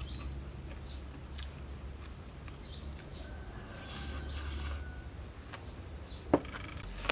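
A person eating grilled pork: faint chewing with small rubbing and clicking sounds of fingers and food against a small bowl, and one sharp click about six seconds in.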